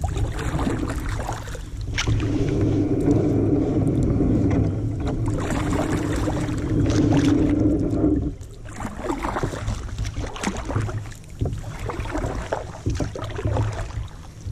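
Kayak being paddled: paddle blades dipping and splashing and water washing along the hull. A steady low rushing fills the first half and stops suddenly just past the middle.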